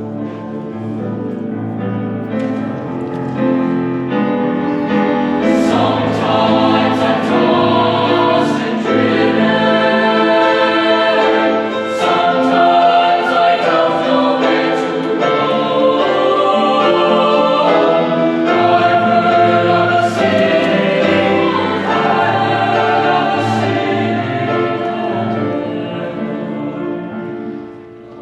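A madrigal choir singing in several parts, swelling louder in the middle and easing off near the end.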